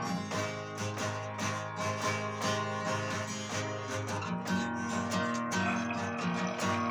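Music with a strummed acoustic guitar, playing chords.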